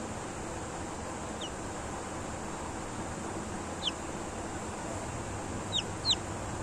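Kadaknath chick peeping: four short, high, falling peeps, the last two in quick succession near the end, over a steady background hiss and hum.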